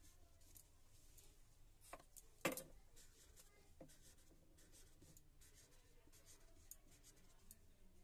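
Faint scratching of a pen drawing strokes on paper, with a soft knock about two and a half seconds in.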